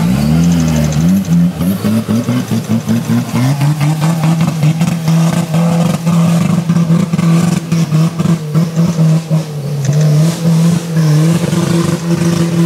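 Suzuki Samurai 4x4 trial car's engine revving hard: several quick rising surges of throttle, then held at high revs under load as it claws up a steep dirt slope, with a brief dip in revs about three-quarters of the way through.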